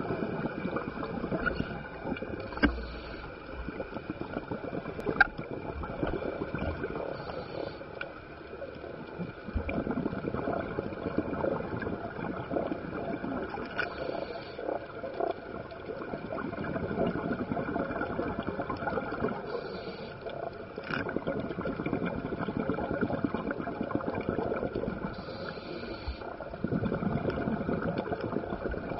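Scuba diving heard through the camera's underwater housing: the diver's exhaled regulator bubbles gurgle past in surges a few seconds apart over a steady underwater hiss. There are two sharp clicks in the first few seconds.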